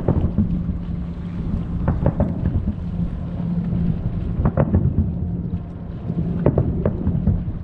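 Aerial fireworks shells bursting across the water, heard as several deep booms, some in quick pairs. Beneath them runs a steady low rumble with a constant hum.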